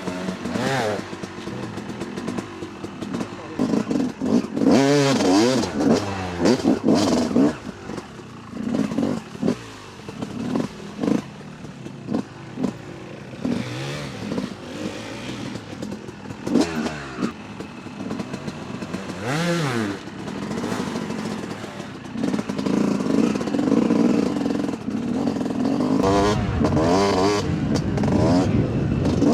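Two-stroke Yamaha YZ 250 dirt bike engine being ridden off-road, revving up and down in repeated short bursts of throttle. Near the end it runs more steadily at higher revs.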